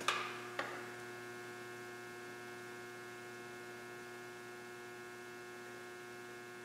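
Faint steady electrical hum made of several even tones. Two light clacks come in the first second as the magnet-backed digital readout display is set in place on the grinder.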